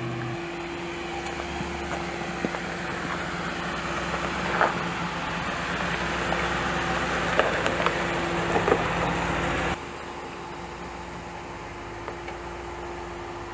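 The Ram Power Wagon's 6.4-liter V8 running at low, steady revs as the truck crawls off-road, with a few sharp cracks in the middle. About ten seconds in, the sound drops to a quieter steady hiss.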